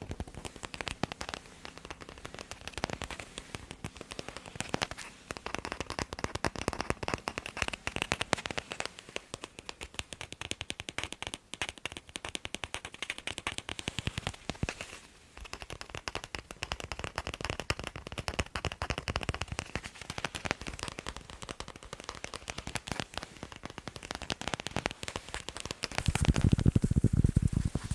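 Rapid tapping on a sports ball, a dense run of quick taps. About two seconds before the end the taps turn deeper and heavier.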